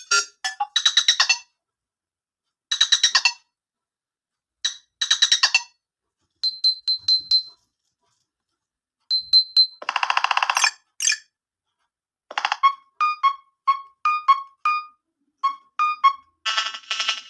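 Nothing Phone (1) ringtones played in turn: short bursts of rapid electronic blips separated by silences, then high pings, a brief buzzing burst about ten seconds in, and a run of short beeps about two a second, with a new denser pattern starting near the end.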